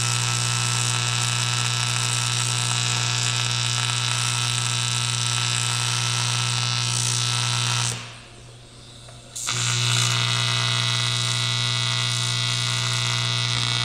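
AC TIG welding arc on aluminium: a steady buzzing hiss. It cuts off about eight seconds in and strikes again a second and a half later.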